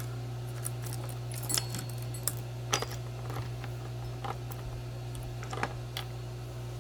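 Scattered light metallic clicks and clinks as a chainsaw's guide bar and chain are handled and lifted off the saw body, over a steady low hum.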